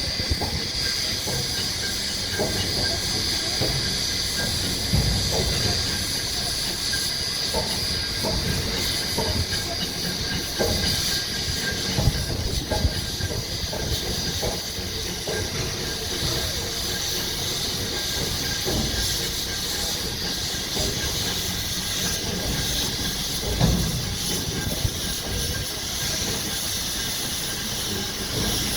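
Steam locomotive 3526 (a NSW C35 class 4-6-0) standing on a turning turntable, hissing steam steadily over a low rumble. Scattered clanks and knocks sound throughout, a sharp one about 12 s in and another near 24 s. The hiss eases after about ten seconds.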